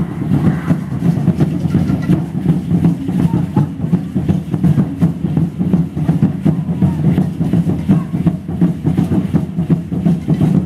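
Aztec ceremonial drumming in a fast, steady beat, mixed with the dry rattling of dancers' seed-pod and shaker rattles and the chatter of the crowd.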